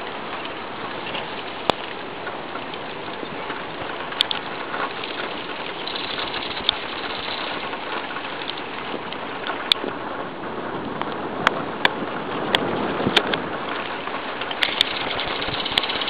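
Steady rain falling, with scattered sharp taps of single drops striking close by.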